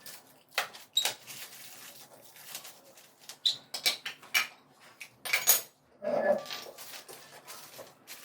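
Packaging being handled: a string of sharp clicks, scrapes and crackles, with a louder squeak about six seconds in.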